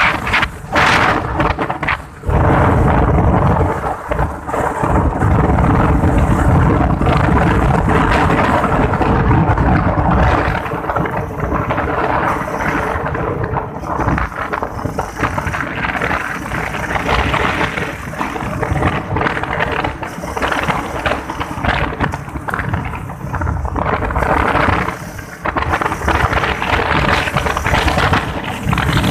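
Wind buffeting a phone's microphone on a moving motorcycle, a heavy continuous rumble, with the motorcycle's engine running underneath.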